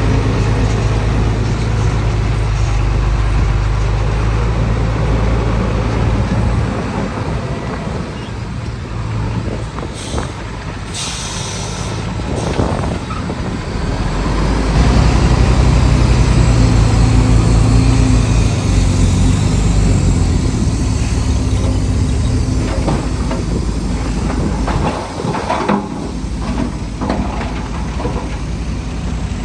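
Heavy diesel earthmoving machinery running, its engine easing off and then working harder again about halfway through. A short hiss of air, like a truck's air brake, comes about ten seconds in.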